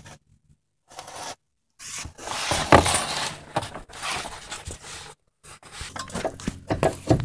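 Irregular metal rubbing and scraping with a few sharp knocks, from a bolt and hand tools being worked loose on a car's front suspension.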